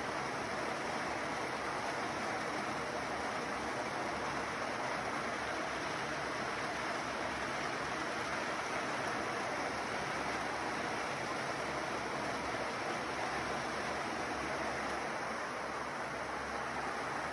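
Kadıoğlu 180ED walnut hulling machine running: a mass of green walnuts churning in the rotating, bristle-lined drum under a water spray, making a steady rushing noise.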